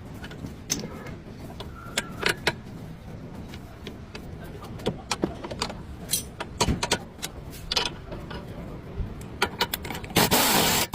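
Irregular metallic clicks and knocks, like tools working on a car's suspension during a stabilizer link replacement, over a low background rumble. A loud burst of noise, lasting about a second and a half, comes near the end.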